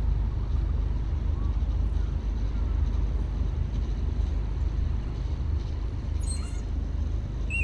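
Wind buffeting a phone's microphone outdoors: a steady, low, rumbling noise, with a few faint bird chirps over it.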